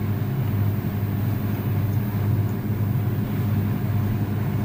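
Steady low hum from a running SMD hot-air rework station, its fan and heater droning evenly while solder is cleaned from the charging-jack pads.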